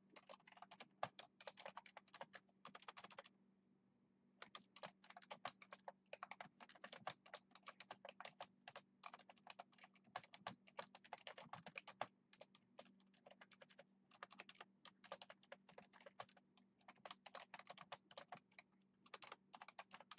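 Typing on a computer keyboard: fast runs of keystrokes in bursts with short pauses while a line of text is entered. A faint steady low hum runs underneath.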